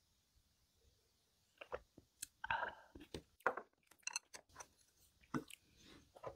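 A person chewing and crunching food close to the microphone: quiet at first, then from about a second and a half in a run of irregular wet clicks and crunches.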